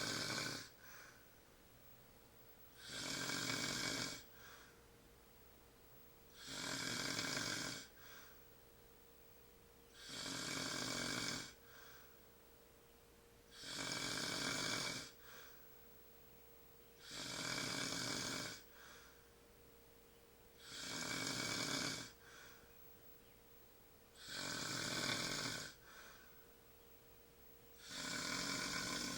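A man snoring in his sleep, with a steady rhythm of one snore about every three and a half seconds, each lasting a little over a second and followed by a short, softer breath.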